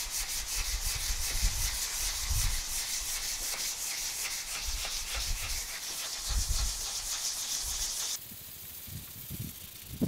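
Hand sanding of cured body filler on a car's wheel arch with 400-grit sandpaper held in the hand: quick, even back-and-forth rasping strokes, a final fine-grit pass to smooth the edge. The strokes stop about eight seconds in.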